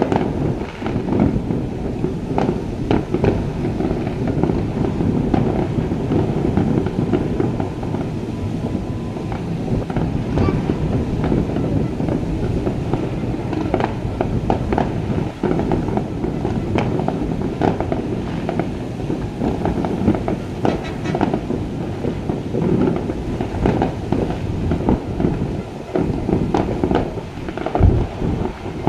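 A fireworks display going off continuously, with many sharp bangs and crackles in quick, irregular succession over a constant rumble of explosions.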